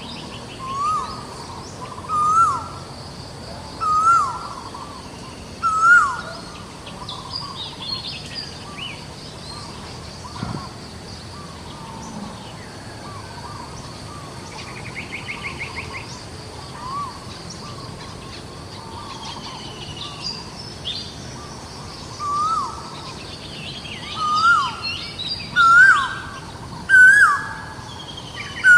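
Animal calls: a short call that rises and falls, repeated every second or two and louder near the end, over higher bird chirps, with a brief rapid trill about halfway.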